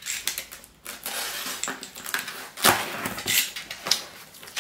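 Cardboard box being forced open by hand: rustling, tearing and scraping of the packaging, with several sharp knocks, the loudest a little under three seconds in.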